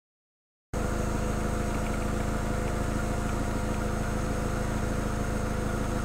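2004 Volkswagen Passat's 1.8-litre turbocharged four-cylinder engine idling steadily, heard at the tailpipe. The sound cuts in abruptly about a second in. The car has an exhaust leak, which the owner suspects fills the cabin with fuel and exhaust smell at long idles.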